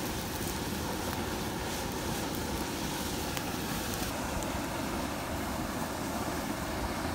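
Steady rushing hiss of a portable butane camp stove's burner running at full flame.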